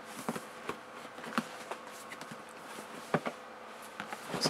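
A knife cutting the tape and cardboard of a laptop's shipping box, with scattered light taps and scrapes as the box is handled.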